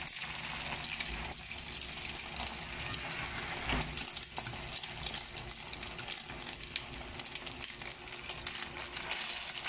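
Egg-dipped tikoy (sticky rice cake) sizzling and crackling steadily in hot oil in a frying pan, with a few light clicks of metal tongs and a fork against a bowl.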